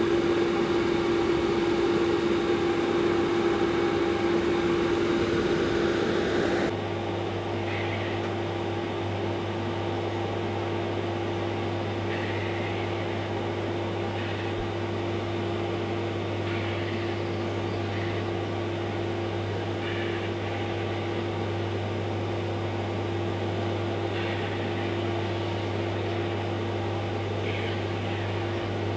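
Extractor fan of a powder-coating booth running with a steady hum, together with the air hiss of an electrostatic powder-coating gun spraying. About seven seconds in the sound gets a little quieter and less hissy, and a deeper hum comes in.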